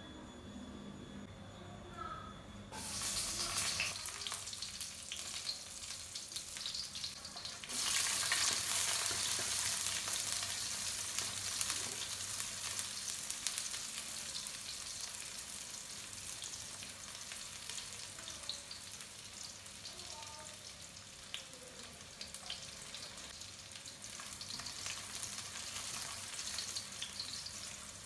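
Chopped aromatics and red chilli frying in hot oil in a non-stick wok: the sizzle jumps sharply louder about eight seconds in and then slowly settles to a steadier hiss. A spatula scrapes and taps the pan as the pieces are stirred.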